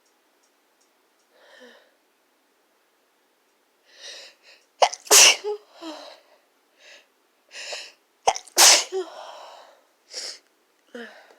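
A person with a sniffly nose sneezing twice, about three and a half seconds apart, each sneeze led by quick catching breaths. Short sniffs follow near the end.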